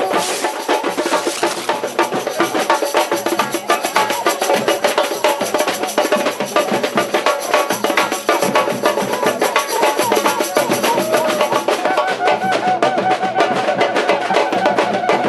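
Samba drum band (bateria) playing a fast, steady rhythm of dense drum and percussion strokes, with cuíca among the instruments.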